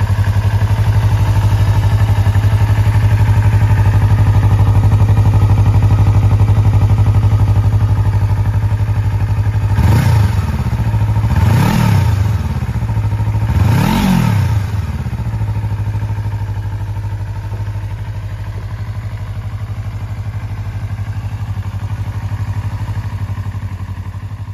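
Yamaha YZF-R25's 249 cc parallel-twin engine idling through an aftermarket slip-on muffler, revved three times in quick succession about ten seconds in, each rev rising and dropping back to idle. The idle fades out near the end.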